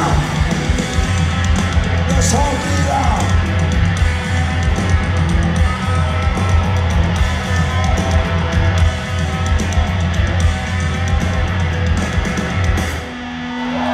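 Live punk rock band playing loud, with heavy drums, distorted guitars and shouted vocals. The full band cuts out about thirteen seconds in, leaving one held low note as crowd noise rises.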